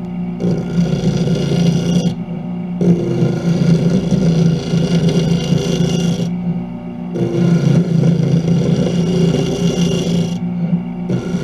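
Wood lathe running with a steady hum while a turning tool cuts the inside of a spinning segmented wood blank, in four cutting passes of a few seconds each with short breaks between them.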